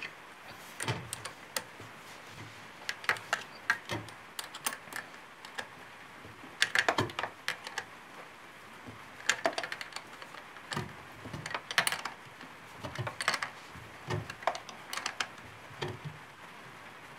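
Small wrench clicking and scraping against a battery terminal nut and bolt while it is tightened, a string of light, irregular metallic clicks with a few quick clusters.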